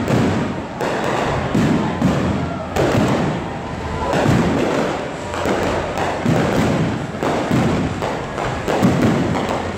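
Aerial fireworks display: shells bursting one after another in a dense, continuous run of booms and bangs, several a second.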